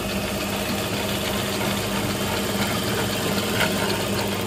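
Juki industrial sewing machine running steadily at low speed with an even mechanical hum, its bobbin winder spinning thread onto a bobbin.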